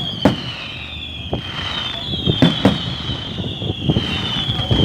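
Fireworks going off: a string of sharp bangs and cracks, some in quick succession, over a low rumble. A high whistling tone that falls slightly repeats about every second and a half.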